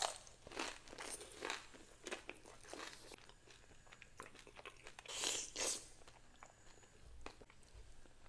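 Close-up crunching and chewing of fried crab rangoons: a string of crisp bites, with a louder crunch about five seconds in.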